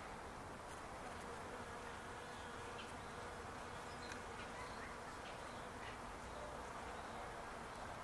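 Bees buzzing as they forage among the blossoms of a flowering palo verde tree: a faint, steady hum.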